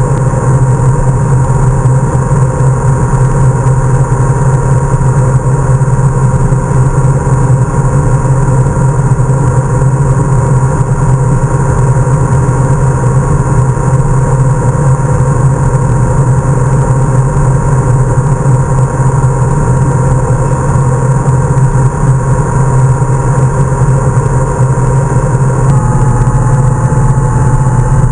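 Honda Gold Wing motorcycle cruising at highway speed: a steady engine drone mixed with wind rush. The engine note drops slightly near the end.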